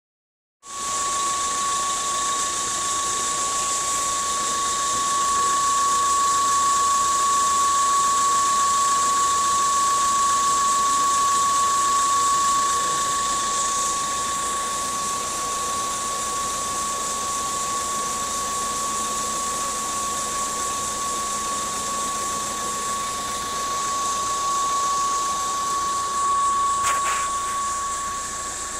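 Ford Focus engine running with a steady high-pitched whine, an abnormal noise from the left front of the engine bay, over a hiss of engine noise. A brief click sounds near the end.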